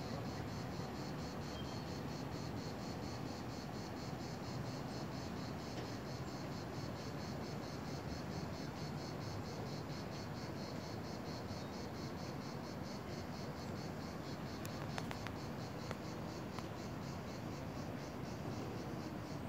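Insects chirping in an even, repeating pulse of about four a second, over a steady low background hum.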